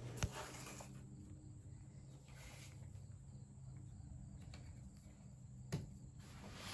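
Faint outdoor background ambience with a steady low hum, broken by two brief knocks, one just after the start and one near the end.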